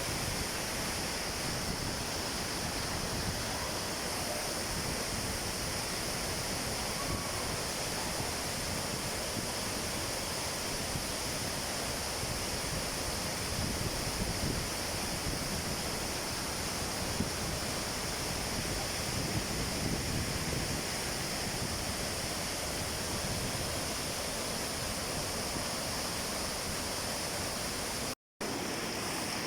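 Steady rushing water from a waterfall or fast stream, a dense even roar that breaks off for a split second near the end.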